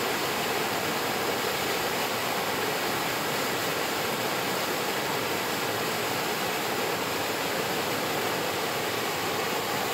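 Waterfall: water pouring and splashing in a steady, unbroken rush with no changes.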